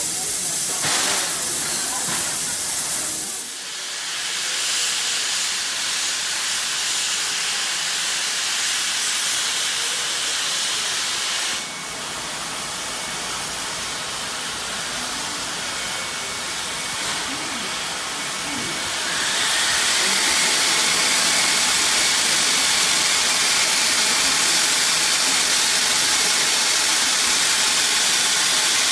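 Steam locomotive standing with steam blowing off at its front: a steady, loud hiss that grows louder about two-thirds of the way through.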